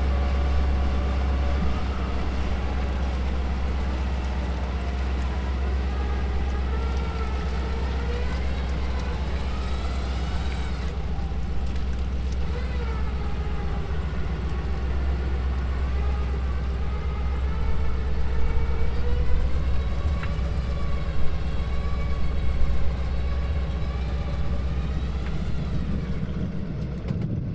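Vehicle engine running with a deep, steady hum, its pitch rising and falling slowly as the revs change.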